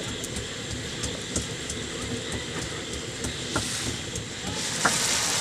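Wok of liquid bubbling hard over a wood fire in a clay stove, with the burning sticks crackling. A hiss swells near the end.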